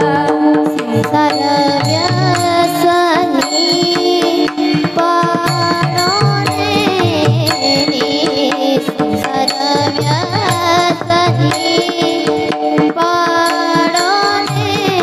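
Devotional Marathi kirtan tune sung by young female voices over a steady held drone, with hand-drum accompaniment.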